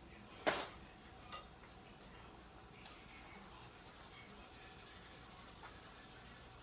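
Fries fresh from the deep fryer being seasoned: a sharp knock about half a second in and a lighter tap just after, then faint rubbing and rustling.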